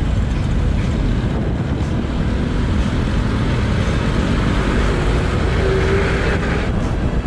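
Ride noise from a motorcycle moving through city traffic: steady engine and road rumble with wind on the microphone.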